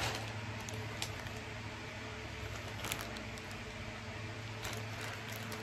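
Faint handling of a mask's plastic packaging: a few light crinkles and small clicks over a steady low hum.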